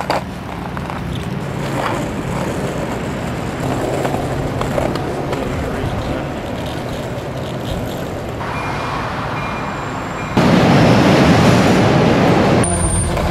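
Wheels of a plastic cruiser skateboard rolling over city pavement in a steady rumble. About two-thirds of the way through it gets much louder for roughly two seconds, then drops back.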